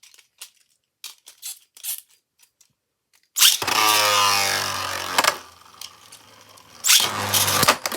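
Light plastic clicks as Beyblade tops are fitted to their launchers. About three seconds in, two Beyblades are ripped off their launchers into a plastic stadium: a sudden loud burst with a whine falling in pitch, then the tops spinning and knocking together, with sharp clashes near the end.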